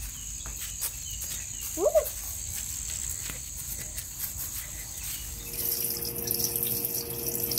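Outdoor background with a low rumble and a thin steady high tone. About five and a half seconds in, a kitchen faucet starts running water into a sink over a butternut squash, a steady splashing hiss.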